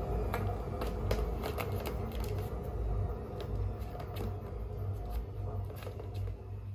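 Plastic balls rattling and clicking around the tracks of a three-tier cat ball-tower toy as kittens paw at it: quick, irregular clicks, busier in the first half and thinning out later.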